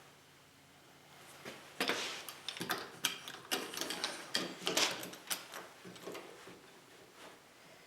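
A wooden edge clamp being worked by hand: a quick run of clicks, knocks and rubbing of wooden parts, starting about a second and a half in and dying away a second or so before the end.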